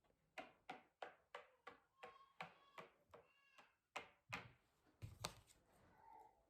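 A Monopoly token tapped lightly along the board, a quiet tick about three times a second, counting off the squares of a move. A faint high-pitched sound comes in about two to three and a half seconds in.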